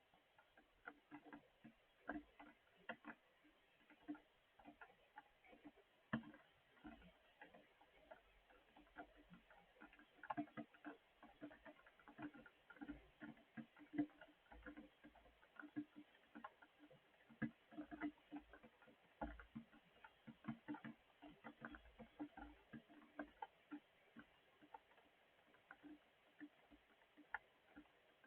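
Rain falling, heard as faint, irregular ticks of individual drops landing, several a second.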